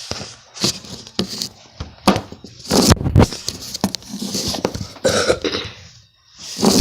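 Homemade slime being squished and handled by hand, making a run of irregular pops and squelches.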